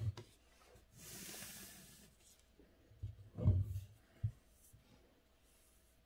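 Calligraphy paper being handled and slid across the desk: a soft rustling slide about a second in, then a few dull bumps and a short knock around three to four seconds in.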